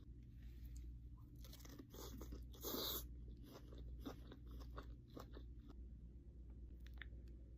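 A person chewing sushi close to the microphone: soft wet chewing with small clicks and crunches, and a louder burst of crunching about three seconds in.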